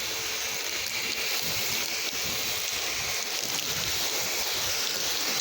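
Pressure washer spraying water in a steady hiss, with a faint steady hum from the machine underneath; the spray cuts off at the very end.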